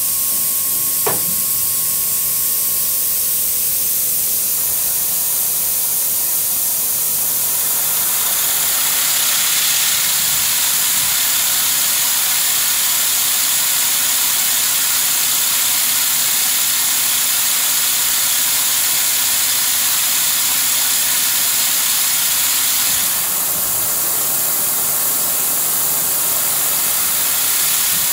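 Averex HS-630i high-speed horizontal machining center running: a steady hiss over a machine hum made of a few steady tones, with a single click about a second in. The hiss gets brighter from about 8 seconds in and eases back about 23 seconds in.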